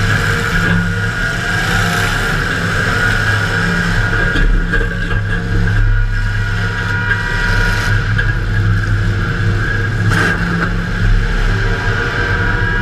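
Demolition derby car's V8 engine running loud under throttle, heard from inside the car, with a brief sharp hit or clatter about ten seconds in.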